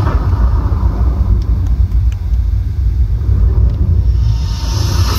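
A loud, deep, steady rumble from the water-dance fountain show. Near the end a hiss swells up, in time with the jets spraying.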